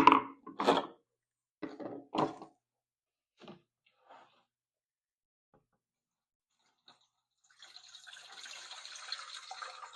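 A few short knocks and clunks of the plastic tank being handled, then about seven and a half seconds in, water starts running steadily into the Ryobi backpack sprayer's plastic tank, filling it to leak-test the plastic-welded crack.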